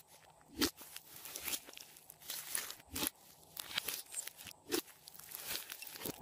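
Hands squeezing, stretching and folding a large mass of thick mixed slime. The slime gives off irregular squelches, clicks and air-bubble pops, with a few louder pops about half a second, three seconds and five seconds in.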